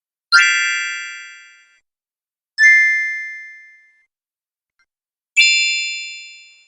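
Three 'cute magic' chime sound effects, each a bright cluster of high ringing tones that starts at once and fades away over about a second and a half, with silence between them. The second chime is thinner, with fewer tones.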